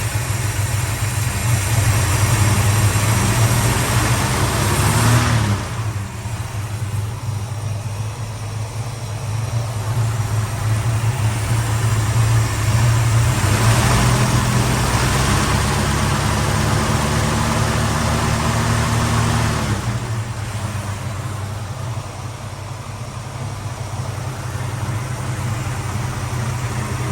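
Valiant VH Charger engine running as it warms up after a restart from a month of sitting. The revs are held up for a few seconds, drop back to idle, are raised again for several seconds and then fall back near the end.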